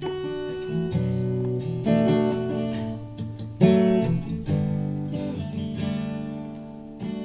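A lone acoustic guitar strumming and letting chords ring, about one stroke a second, as the song's instrumental intro before any singing. The strongest stroke comes about three and a half seconds in.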